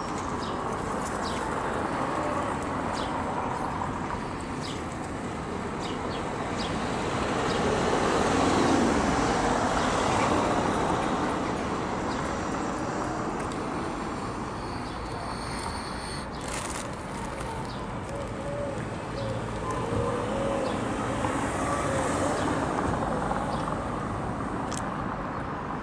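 Steady road traffic noise, swelling as a vehicle passes about eight seconds in and again near the end, with a few faint clicks.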